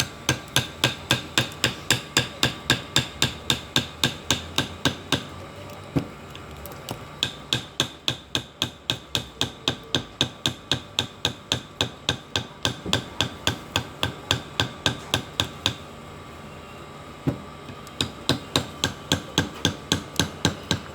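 Rapid, regular hammer strikes, about four a second, in three runs with short pauses between them.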